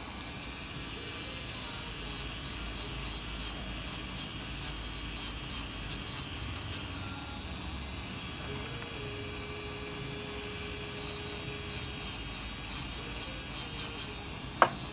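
Slow-speed dental handpiece spinning an abrasive composite-finishing disc with a steady high whine, trimming the line angle of a composite restoration on a model tooth. Light scratchy ticks come as the disc touches the tooth near the end, with one sharp tick just before it stops.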